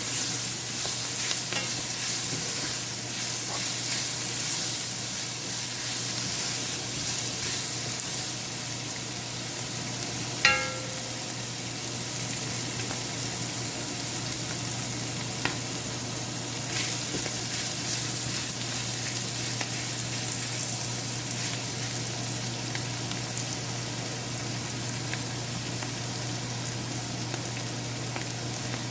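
Cabbage and minced chicken sizzling as they are stir-fried in a pan, a steady frying hiss with the stirring utensil moving through the food. About ten seconds in, the metal utensil strikes the pan once with a short ringing clink.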